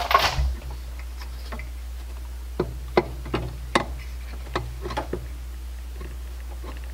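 Light, irregular clicks and knocks of a new brake master cylinder being handled and lined up over the brake booster's mounting studs.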